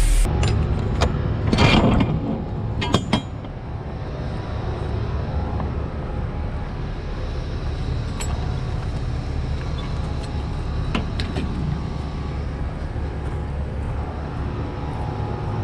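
Yard spotter truck's diesel engine running steadily with a low rumble, with a few clicks and rattles in the first three seconds.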